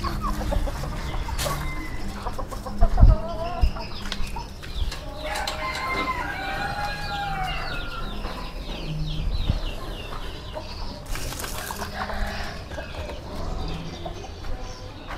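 Chickens clucking and calling in many short, varied calls, with a couple of sharp knocks about three seconds in.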